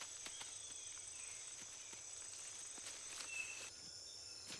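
Tropical forest ambience: a steady, high-pitched insect chorus, with scattered light clicks and rustles and a brief high chirp a little after three seconds. The insect drone shifts to a different pitch near the end.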